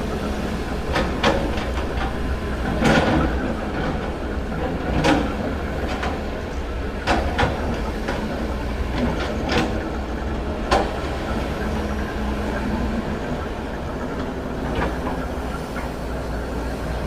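A vehicle's steady low rumble with about ten irregular clanks and knocks spread unevenly through it.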